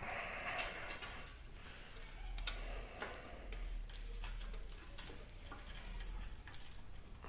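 Scattered light clicks and rustling from parts being handled: cables and clips being worked through a motorcycle frame by hand.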